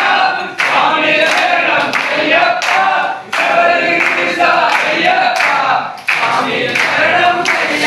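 Group of men singing an Ayyappa bhajan together in chorus over a steady rhythmic clapping beat. The singing pauses briefly between phrases, about every three seconds.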